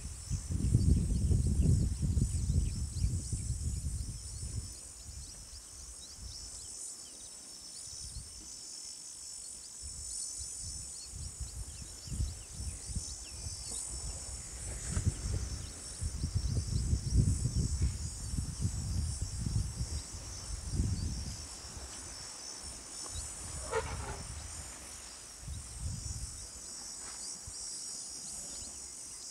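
Steady, high-pitched chorus of insects in the bush. Low rumbling gusts come and go beneath it, loudest in the first few seconds, and a single brief rising call sounds once about three quarters of the way through.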